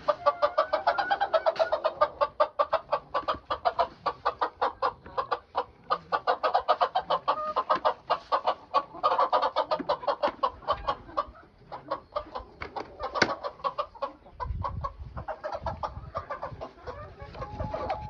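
Chickens clucking in a quick, steady run of short notes, several a second, as they gather at fresh greens thrown into the pen.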